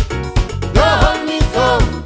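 Caribbean gospel song with a steady drum and bass beat; a voice sings a short, sliding phrase about a second in.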